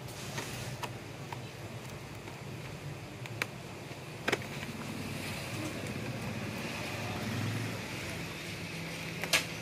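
Small scissors snipping and prying at the plastic wrap sealing a cardboard box, heard as a few scattered sharp clicks, the loudest near the end, over a steady low background hum.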